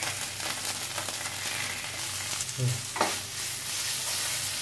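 Onion, ginger and garlic paste sizzling in hot oil in a nonstick pan while a wooden spatula stirs and scrapes it, with a few sharper scrapes about two to three seconds in.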